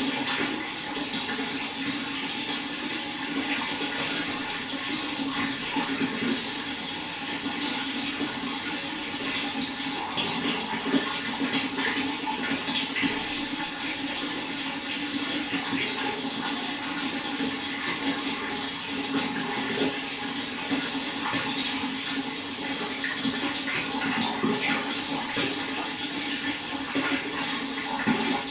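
Running water flowing steadily, with small splashes all through.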